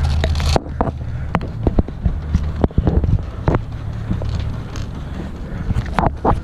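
Steady low wind rumble on the microphone, with irregular sharp clicks and knocks scattered throughout.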